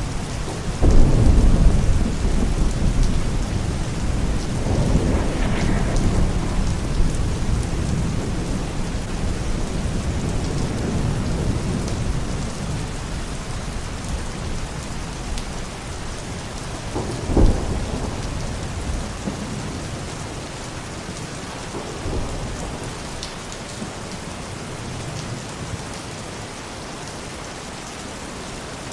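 Thunderstorm: steady heavy rain with rolling thunder. A loud rumble comes about a second in and another around five seconds, a sharp crack of thunder comes around seventeen seconds, and the thunder dies down near the end while the rain keeps falling.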